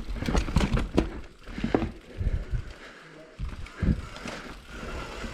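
Mountain bike rolling over rough singletrack, with irregular knocks and rattles from the bike as it goes over roots and rocks.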